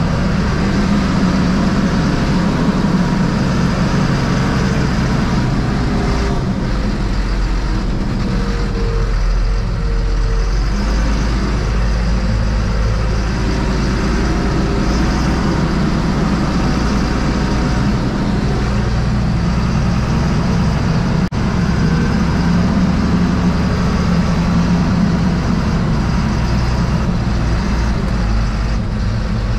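Fendt 926 Vario's six-cylinder diesel engine running steadily, heard from inside the tractor cab. Its low note shifts for several seconds, from about six to thirteen seconds in, and there is a single sharp click about twenty-one seconds in.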